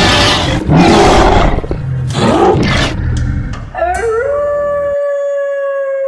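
Several loud, rough noisy blasts, then, about four seconds in, a long canine howl that rises and then holds a steady pitch.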